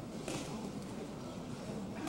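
Crowd murmur in a boxing hall, with one sharp smack about a third of a second in.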